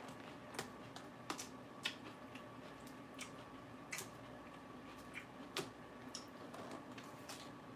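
Irregular crisp crackles and clicks of raw lettuce being chewed, a dozen or so scattered over several seconds, over a faint steady hum.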